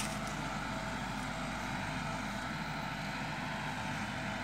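Tractor engine running at a steady speed, an even low drone with no change in pitch or load.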